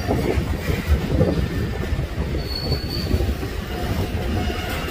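Freight train of covered hoppers and tank cars rolling past close by: a steady rumble and clatter of steel wheels on rail. About halfway through there is a brief high-pitched wheel squeal.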